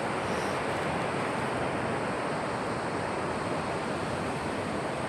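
Sea surf breaking and washing onto the beach, a steady rushing noise, with some wind in the mix.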